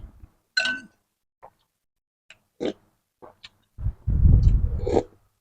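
Close-up mouth sounds of someone eating pork noodle soup: a few short smacks and clicks of chewing, then a longer slurp about four seconds in.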